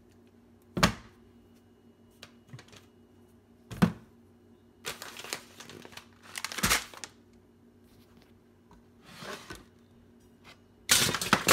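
Grocery items set down one by one on a kitchen countertop: a few sharp knocks and thuds, with plastic packaging crinkling in between and a busy cluster of knocks and rustling near the end.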